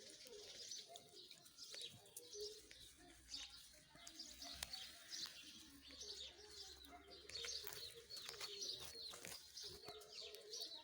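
Faint birdsong: many short, high chirps from small birds, with a low cooing underneath.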